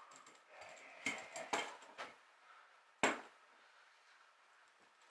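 Parts of an all-bronze South Coast No. 5 sailing winch being handled and set down on a wooden workbench during disassembly: a few metallic clinks and knocks, the sharpest about three seconds in.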